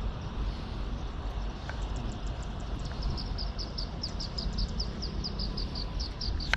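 Steady low outdoor rumble. From about three seconds in comes a quick, even run of short high chirps, about five a second, from a calling animal.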